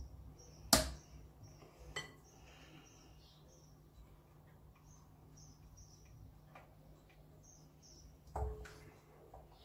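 Quiet kitchen handling sounds from stirring batter in a glass bowl with a spatula and spoon. There is a sharp click about a second in and a lighter one at two seconds, then near the end a knock on the bowl with a short ring.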